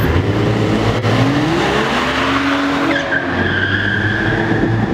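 A car engine revving, its pitch climbing over about a second and a half, then tires squealing in a long steady screech from about three seconds in.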